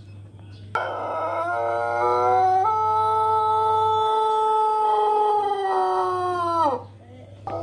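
Pelung rooster crowing: one long crow of about six seconds that rises in steps to a held, even note and then falls away at the end, the drawn-out crow this breed is kept for. A second crow starts just before the end.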